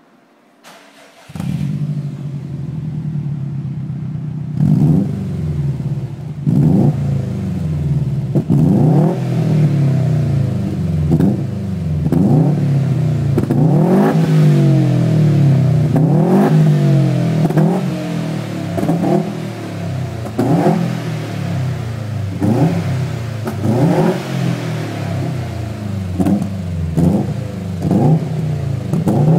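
2011 Subaru Impreza WRX STI's 2.5-litre turbocharged flat-four heard at the tailpipes of a Milltek turbo-back exhaust. It starts up about a second in, idles for a few seconds, then is revved over and over in short blips, each rev rising and falling quickly.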